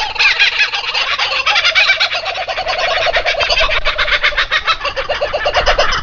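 Nestlings begging at the nest with a continuous run of rapid, repeated cheeping calls, many a second, as the parent bird feeds them. A second, lower-pitched series of quick calls joins about a second and a half in.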